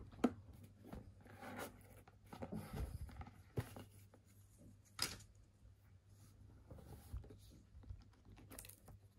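Faint rustling and scraping as a ribbon is untied and pulled off a cardboard gift box and the box is handled, with a few light clicks and knocks of the cardboard, the sharpest about five seconds in.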